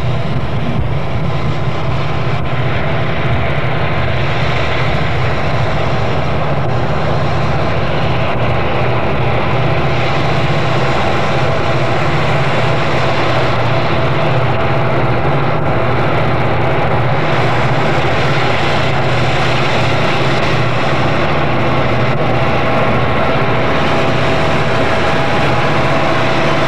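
Diesel-electric freight locomotives of a Rio Grande and Santa Fe lash-up passing close by, their engines running with a steady, heavy low drone.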